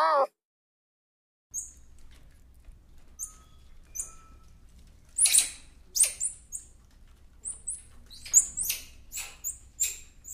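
Squirrel monkey calling: many short, very high-pitched chirps and peeps, scattered and in quick runs, over a faint low rumble. At the very start, the cut-off tail of a red fox's falling call.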